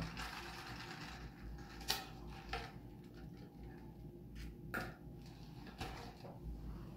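A few soft clicks and knocks, the clearest about two seconds in and near five seconds, from a plastic cup of iced coffee being handled and sipped through a straw, over faint room tone.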